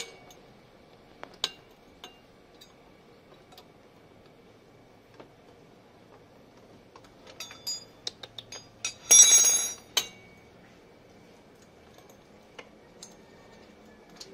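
Metal exhaust parts being handled and fitted, giving scattered light clicks and clinks, with a louder clinking rattle about nine seconds in that lasts about a second.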